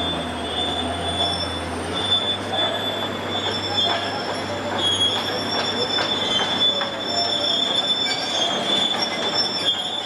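Cat 374F tracked excavator on the move, its steel crawler tracks squealing in steady high tones, with scattered clanks from the track links and a low engine hum underneath.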